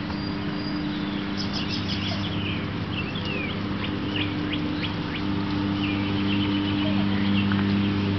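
Birds chirping in short, high, downward-gliding calls over a steady low machine hum.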